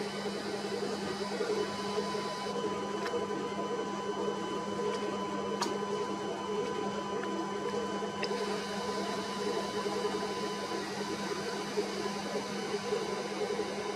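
Steady machinery hum on board a ship, low and even with a few steady tones, and a faint thin whine that comes in about a second and a half in and drops out near the end.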